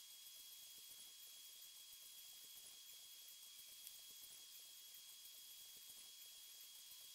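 Near silence: faint room tone and hiss.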